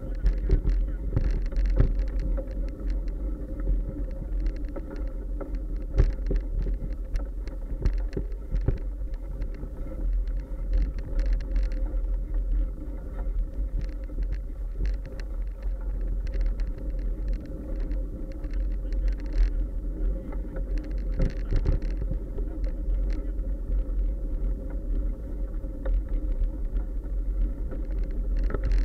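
Bicycle riding along a bumpy dirt trail, heard from a camera mounted on the bike: a steady rumble of tyres and wind with frequent knocks and rattles from the bumps.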